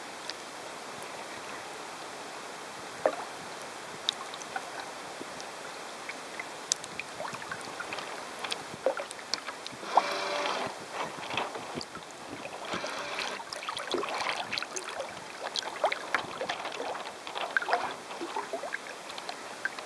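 Water rushing and splashing along the hull of a 900 mm carbon-fibreglass radio-controlled sailing yacht heeled over under sail, heard from a camera on its deck, with wind on the microphone. A steady hiss for the first several seconds, then a busy run of splashes and slaps from about eight seconds in.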